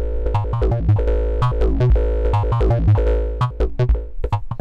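Make Noise 0-Coast analogue synth voice playing a fast step sequence from a 0-CTRL sequencer. A press on a 0-CTRL touch pad opens the dynamics VCA by pressure, so the notes swell and sustain under the pad for about three and a half seconds, then fall back to short plucked notes.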